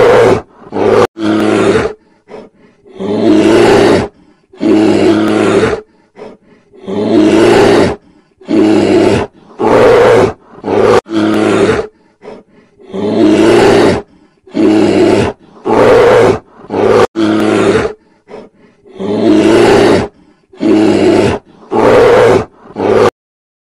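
Bear roaring over and over, loud roars about a second apart, each lasting up to a second and a half, stopping abruptly near the end.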